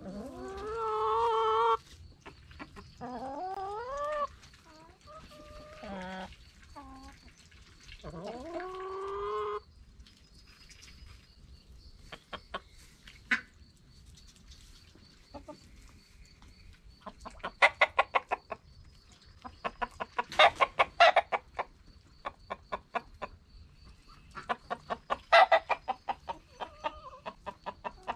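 A backyard flock of hens and a rooster calling: several drawn-out, wavering calls in the first ten seconds, then bursts of rapid clucking that grow louder in the second half.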